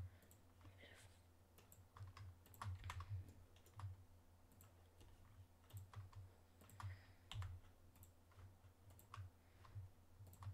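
Computer mouse buttons and keyboard keys clicking faintly and irregularly, a few clicks every second or two, over a steady low hum.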